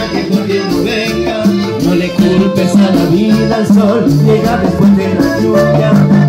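A live salsa band playing, with congas and drum kit keeping a steady groove under a walking bass line.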